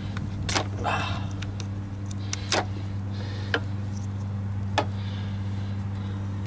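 About six sharp, irregularly spaced clicks and taps of a screwdriver against a small plastic wiring plug and its leads as they are handled, over a steady low hum.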